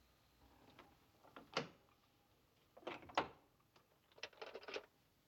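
A door's lock and latch being worked. There are a few sharp clicks and knocks about one and a half seconds in and again around three seconds in, then a quick rattle of clicks near the end.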